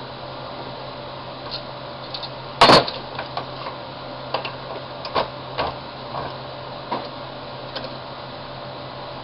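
Hard parts of an electric die grinder being handled and fitted by hand: one loud clack about two and a half seconds in, then scattered lighter clicks and taps, over a steady low hum.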